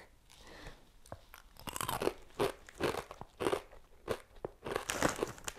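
A person chewing a crunchy macaroni-shaped Bisli snack: a run of crisp crunches, about two a second, starting around a second and a half in.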